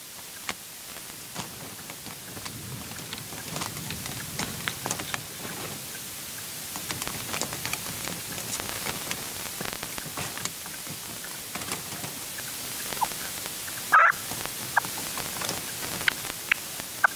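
Red-legged partridge calling: an irregular run of short, sharp clicking notes, with one louder chirping call about fourteen seconds in.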